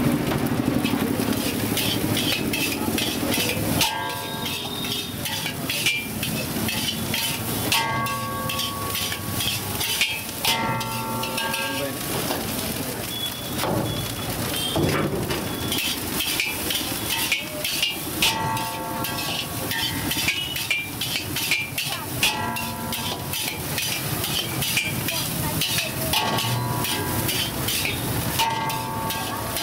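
Fried rice being stir-fried in a wok: a metal ladle repeatedly scrapes and strikes the pan, and some strikes leave a short ring, over a steady sizzle.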